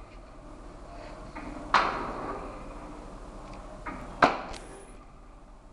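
RTMQ 320 flat-bed die-cutting and hot-stamping machine cycling: a light click followed a moment later by a loud press stroke, twice, about two and a half seconds apart.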